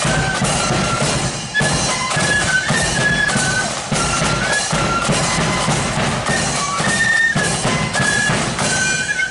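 Marching flute band playing a tune in unison on flutes over a steady beat of snare and bass drums.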